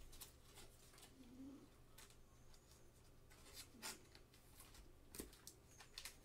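Near silence with faint clicks and crinkles of trading cards being slid into thin plastic penny sleeves. Two short, low cooing sounds come about a second in and about four seconds in.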